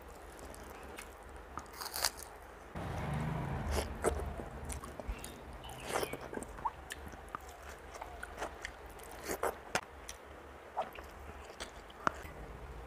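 A person eating rice mixed with beet paste and dal by hand: chewing and mouth sounds, with many scattered sharp clicks and smacks.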